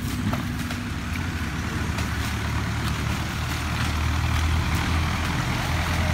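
A steady low engine hum that grows stronger about halfway through.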